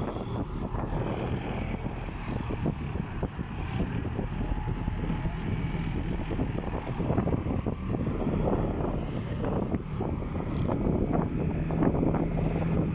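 Heavy construction machinery running with a steady low engine drone.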